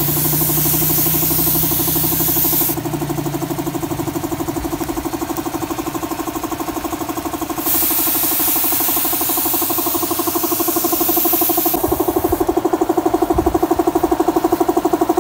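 Air compressor running steadily with a fast, even pulse, under the hiss of a siphon-feed air spray gun spraying a finish coat. The spray gun hisses in two long bursts, from the start to about three seconds in and again from about eight to twelve seconds in.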